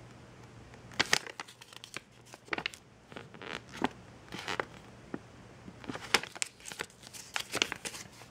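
Paper instruction manual being handled and its pages turned, rustling and crinkling in a string of short sharp crackles.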